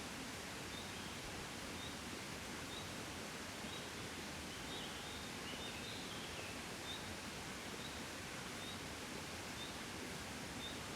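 Gentle breeze: a steady, soft rustling hiss. A small bird gives a short high call over and over, a little more than once a second, with a brief twittering phrase around the middle.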